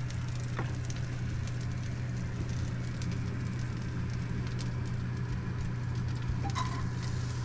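Food sizzling and crackling in a pan of melted butter on the stove, over a steady low hum.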